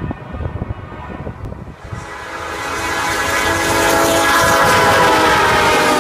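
Diesel locomotive air horn sounding one long steady chord from about two seconds in, growing louder, over the rumble of passing Norfolk Southern freight locomotives.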